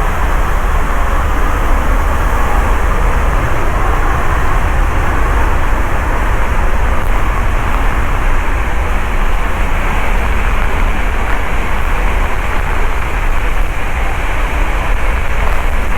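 Waterfall roaring close by: a loud, steady rush of falling water with wind and spray buffeting the microphone.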